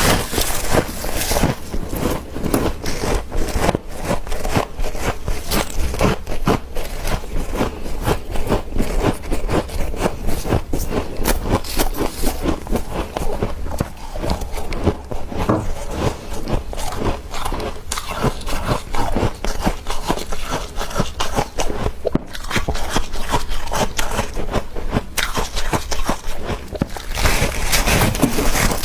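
Soft freezer frost being scraped and bitten, a dense, continuous run of crunching crackles.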